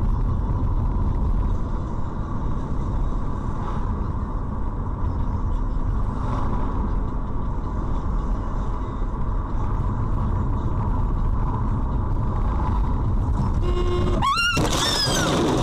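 Steady low rumble of road and engine noise inside a moving car's cabin. A voice starts about a second before the end.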